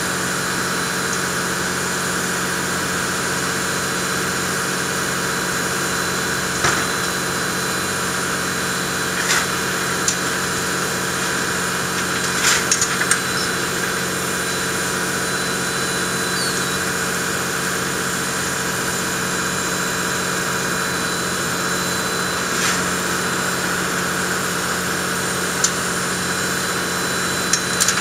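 C57 1 steam locomotive standing in steam, giving off a steady mechanical hum and hiss, broken by a few short sharp clicks.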